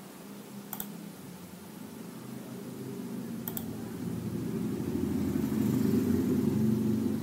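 A low, steady rumble that swells louder over several seconds, with two sharp clicks, one early and one about three and a half seconds in.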